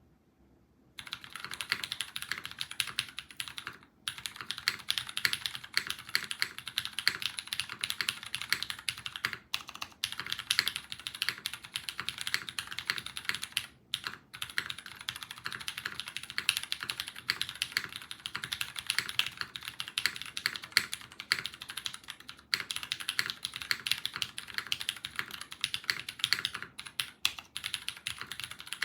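Fast, continuous typing on a dnworks Noodle.Zip custom mechanical keyboard with Krytox-lubed Cherry MX Purple switches, an aluminium plate and GMK keycaps: a dense clatter of keystrokes that starts about a second in, with brief pauses every few seconds.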